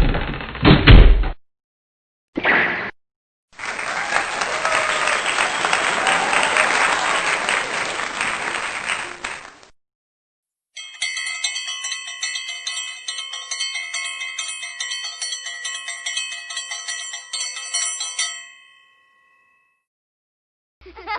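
A run of separate stock sound effects cut one after another: a short clip, about six seconds of applause-like clapping noise, then about eight seconds of bright, ringing chime tones that flicker rhythmically and then stop.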